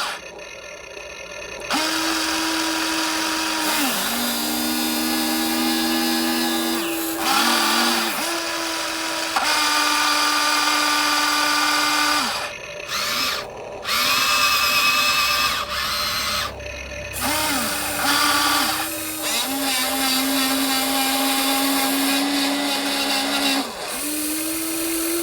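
Small electric motors of a radio-controlled metal excavator whining in runs of a few seconds. Each run starts and stops with a short glide in pitch, and there are brief pauses between runs as the machine works.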